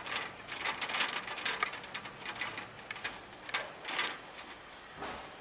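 Irregular run of small metallic clicks and taps as securing bolts are fitted by hand into the underside of a kiosk's metal cover plate, dying down about four seconds in.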